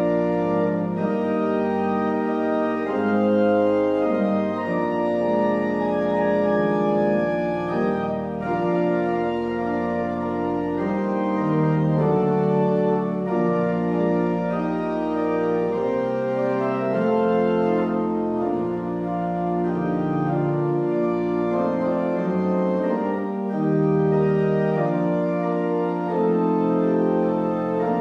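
Church organ playing sustained hymn chords that change step by step, with no voices singing.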